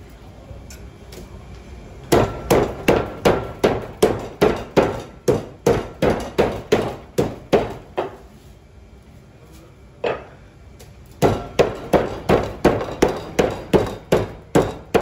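A heavy knife or cleaver chopping hard on a wooden board, about three blows a second. The chopping comes in two runs with a short pause and a single blow between them.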